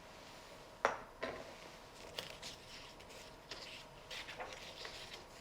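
Two faint sharp clicks about a second in, followed by light, irregular scratching and rustling handling sounds.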